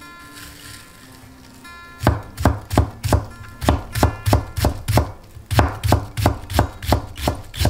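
Chef's knife chopping an onion on a wooden cutting board: a run of sharp, even knife strikes, about three a second, starting about two seconds in, over faint background music.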